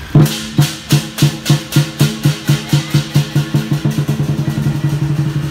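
Lion dance drum and cymbals beating a steady rhythm of about four strikes a second, which speeds up into a fast roll in the last second or so.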